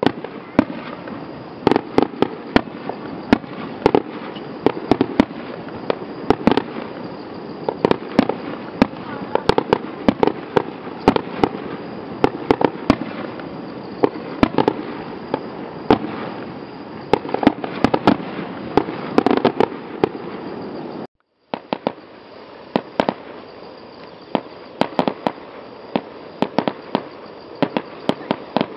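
Fireworks display: aerial shells bursting with many sharp bangs and pops in irregular succession over a steady background noise. The sound drops out briefly about three-quarters of the way through.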